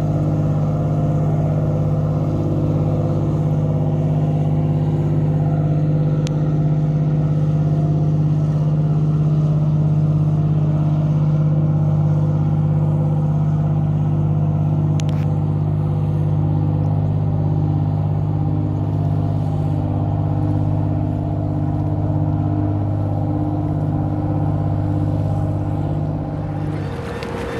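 Shrimp trawler's diesel engine running at a steady speed as the boat motors past: a constant low drone that eases slightly and then cuts off just before the end.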